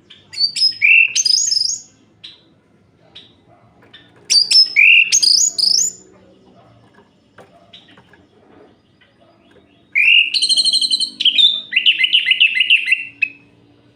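Orange-headed thrush singing: three loud phrases of rising, warbling whistled notes. The first two are short, and the third, about ten seconds in, is longer and ends in a fast run of repeated notes.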